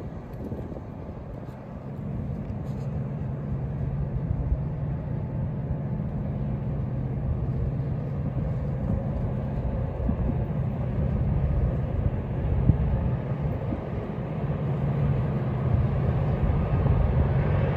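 Diesel locomotive engine of an approaching train, a rebuilt flared-radiator MAC, droning steadily at low pitch and growing gradually louder as it nears.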